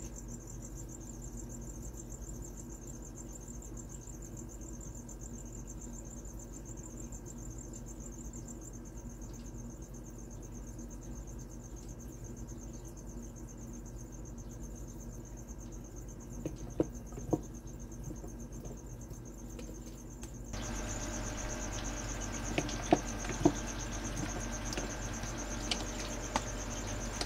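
Steady, finely pulsing high trill like a cricket chirping, over a low hum. A few sharp clicks come in the second half, and the background grows louder about two-thirds of the way in.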